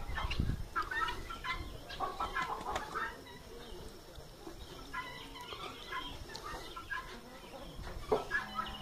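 Farmyard poultry, hens and helmeted guineafowl, calling in short bursts, with a quieter lull about halfway through.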